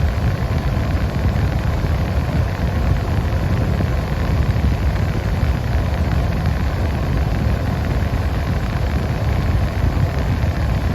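Steady rush of the air-conditioning blower pushing cold air through the vents inside the cabin of a 1992 Nissan 300ZX Twin Turbo, with the car's engine running underneath as a low rumble.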